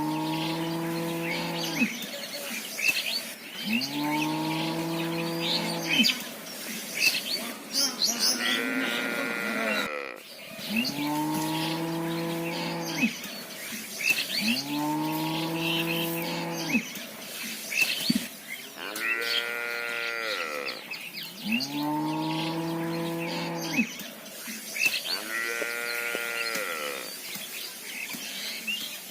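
Cows mooing again and again: about six deep moos of roughly two seconds each, with three higher-pitched moos between them.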